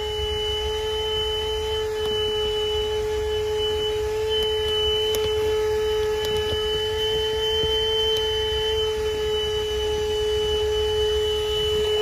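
THISWORX 12-volt handheld car vacuum running steadily with an even motor whine as its nozzle works over the car's floor carpet.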